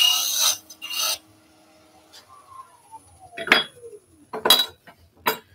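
A hollowing tool cutting into end grain spinning on a wood lathe stops about half a second in, with one more short cut about a second in. The lathe then winds down with a falling whine, and a few sharp metal knocks and clatters follow as the tool is set down and handled.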